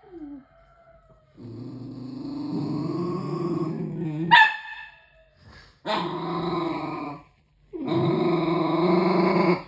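A puppy growling at its own reflection in a mirror: three long, low growls, with a short sharp bark about four seconds in.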